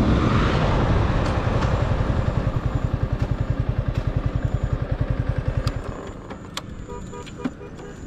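Yamaha R15's single-cylinder engine idling with an even, rapid low pulse, about a dozen beats a second, as the bike rolls to a stop with wind noise fading out. Near six seconds in the engine cuts off, leaving a few faint clicks.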